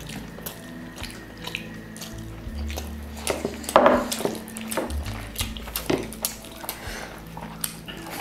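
Light background music with a steady bass line. Beneath it come small clicks and smacks of eating by hand, fingers working rice on plates and chewing, with one brief louder sound about four seconds in.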